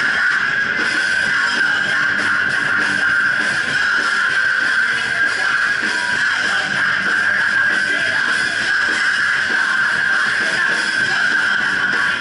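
A band playing live, with strummed electric guitar to the fore, loud and unbroken.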